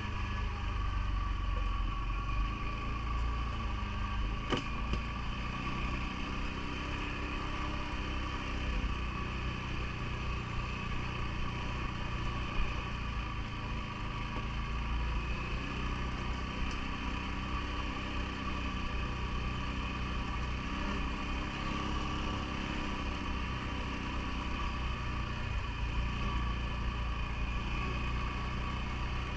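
CFMoto ATV engine running steadily, its pitch drifting gently up and down, with one short click about four and a half seconds in.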